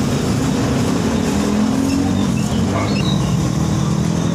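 A motor running steadily with a low, slightly wavering hum.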